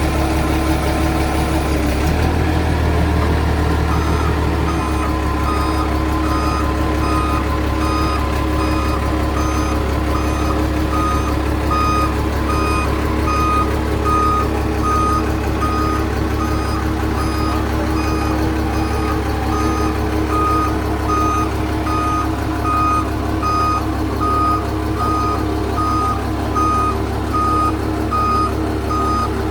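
A vehicle's reversing alarm beeping about once a second, starting about four seconds in, over the steady drone of its running engine.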